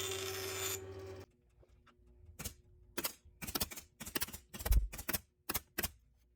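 A steady machine hum that cuts off about a second in, then about a dozen sharp clicks and knocks in quick, irregular runs, from work on a wooden wedge in the loveseat frame.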